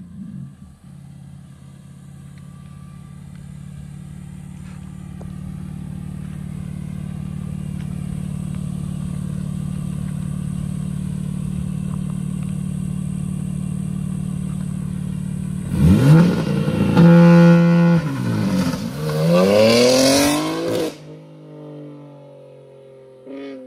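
Straight-piped BMW G80 M3's twin-turbo inline-six idling steadily. About sixteen seconds in it revs hard as the car pulls away, its pitch climbing, dropping at the upshifts and climbing again. About five seconds later the note cuts off sharply and fades into a fainter, falling engine sound.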